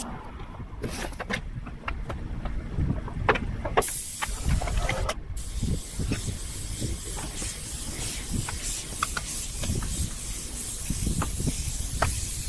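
Airless paint spray gun hissing steadily as it sprays primer onto a corrugated steel roof. The hiss starts about four seconds in and breaks off briefly soon after. Before it there are only scattered knocks over a low rumble.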